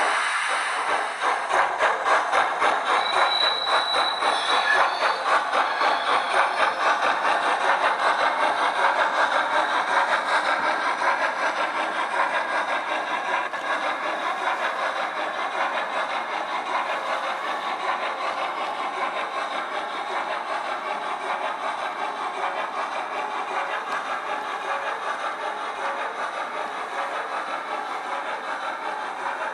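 Model steam locomotive sound from a Loksound v5 decoder in a Hornby LMS 8F, played through a small speaker in the tender: a steady rhythmic beat of exhaust chuffs as the model runs, growing slowly quieter.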